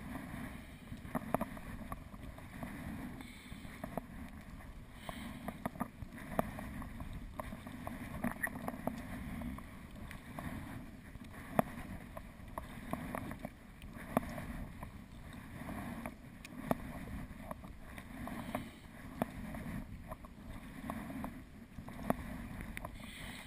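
Sea kayak being paddled: the paddle blades dip in a recurring rhythm, with small splashes, drips and water sounds along the hull.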